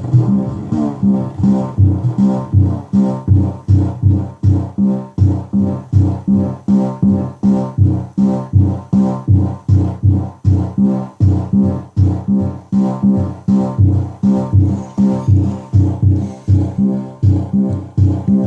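Analog synthesizer playing a steady pattern of short, pitched notes, about two a second, each dying away quickly, through a lo-fi delay pedal.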